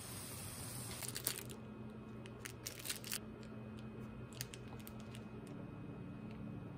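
Daikon rounds sizzling faintly in a frying pan; the hiss cuts off after about a second and a half. After that come scattered light clicks and taps.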